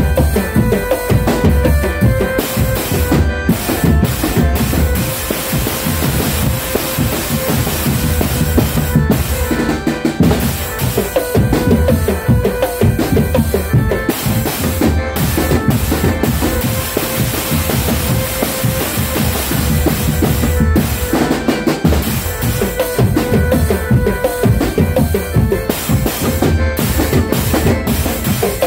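Drumband music: bass drums and snare drums beating a fast, continuous rhythm that carries on without a break.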